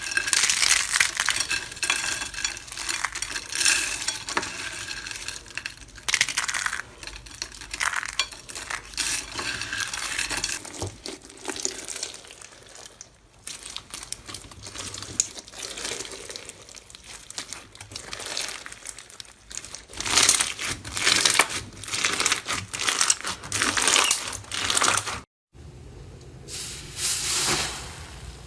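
Slime being squeezed and pressed by hand: irregular crackling and popping clicks that come in loud spells and then fade.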